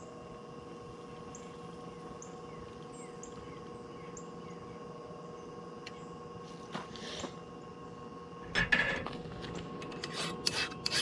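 Steady low hum of the forge blower. About eight and a half seconds in, a file begins scraping over the freshly quenched 5160 spring-steel blade in short quick strokes. The file skates across the steel, the sign that the blade has hardened.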